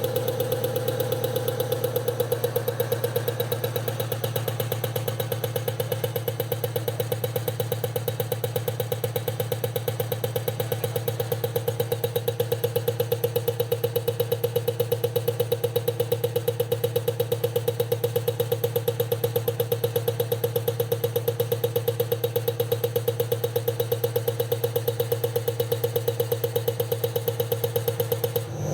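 A CR1016 common rail diesel injector test bench running: a steady low motor hum with a fast, even ticking.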